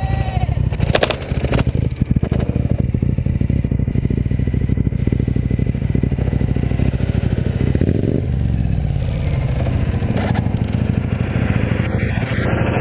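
A Suzuki SV1000S motorcycle falling off its kickstand onto its side, with a short clatter of hard impacts about a second in. A steady low rumble runs underneath.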